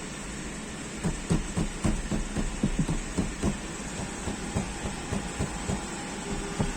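A car dashboard being knocked on repeatedly to find the source of a rattle: a rapid, irregular run of short knocks starts about a second in, over a steady low hum.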